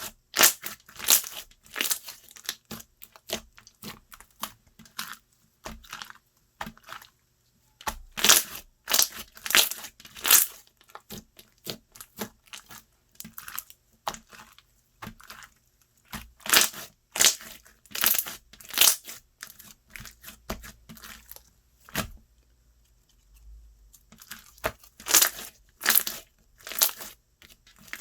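Slime being squeezed, stretched and pressed by hand, giving irregular bursts of crackling and popping, with a lull of a few seconds about three-quarters of the way through.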